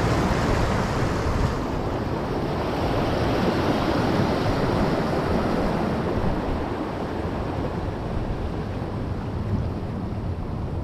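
Ocean surf washing against the rocks of a jetty, with wind buffeting the microphone. The high hiss of the water eases after about a second and a half.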